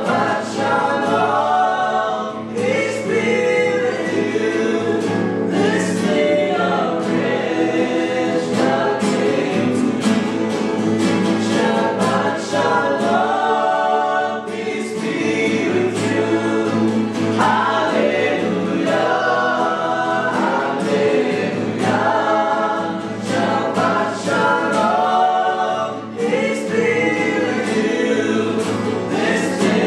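Choir singing a gospel worship song, several voices together over accompaniment.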